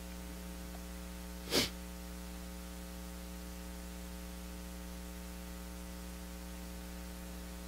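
Steady electrical mains hum in the sound system, with one short breath sound about one and a half seconds in.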